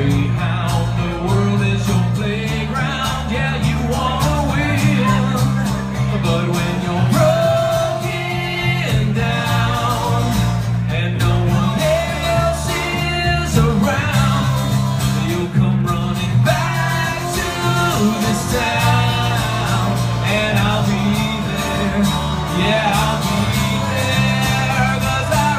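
Live acoustic song: a man singing into a microphone over strummed acoustic guitars.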